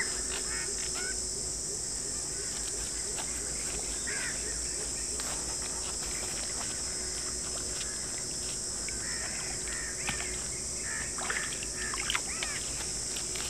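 Insect chorus in the forest, a steady high-pitched drone, with a few faint chirps and light clicks in the second half.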